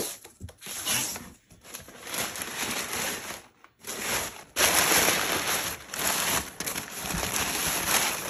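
Cardboard box flaps being folded open with scrapes and rustles, then, from about four and a half seconds in, louder continuous crinkling and rustling of crumpled kraft packing paper being pulled out of the box.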